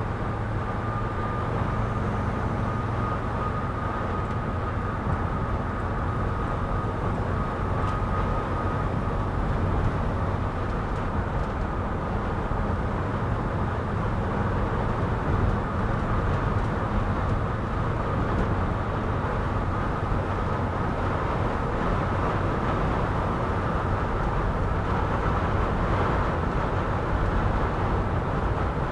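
Cabin noise of a 2006 Mercedes Sprinter van driving in strong wind: steady engine and road rumble with wind noise against the body, and a faint steady high whistle.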